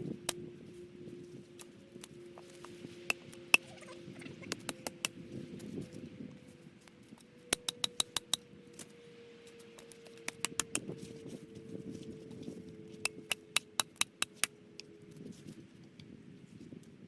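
Conifer branches rustling as twigs are trimmed off, with several quick runs of sharp snapping clicks, a few a second. A faint steady hum slowly falls in pitch underneath.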